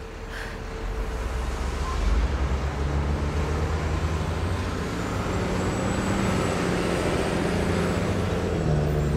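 Road traffic: a motor vehicle engine running under steady road noise, fading in over the first couple of seconds and then holding level.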